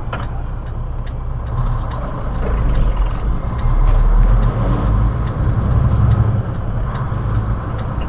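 Semi-truck diesel engine running, heard from inside the cab: a steady low rumble that grows louder a couple of seconds in. A faint ticking repeats about twice a second over it.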